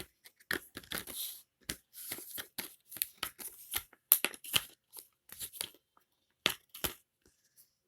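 Packaging being torn open and handled by hand: a run of short, irregular tearing and crinkling rustles that stops about seven seconds in.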